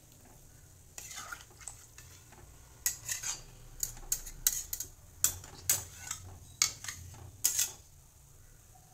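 Metal spatula scraping and clinking against a metal kadai as a watery curry is stirred: a string of about a dozen sharp scrapes and knocks starting about a second in, busiest in the middle, stopping near the end.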